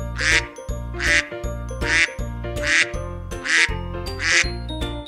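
Duck quack sound effect, repeated six times about once every 0.8 s, over children's background music with a steady bass.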